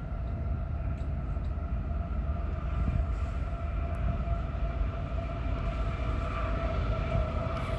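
Union Pacific loaded ballast train passing: a steady low rumble with a steady whine over it.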